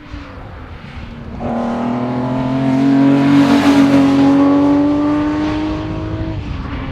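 1969 Datsun 240Z's straight-six accelerating hard as the car comes past, the engine note climbing steadily in pitch. It swells to its loudest around the middle, then the note breaks off shortly before the end.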